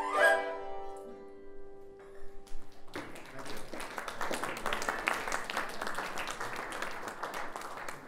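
The closing flourish and final held notes of a Chinese traditional ensemble of erhu, yangqin, dizi and pipa ring out and fade over about three seconds. Then audience applause starts and runs on.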